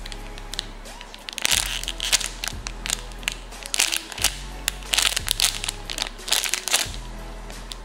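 Clear plastic packaging bag crinkling in repeated short bursts as a foam squishy toy is squeezed inside it, over soft background music.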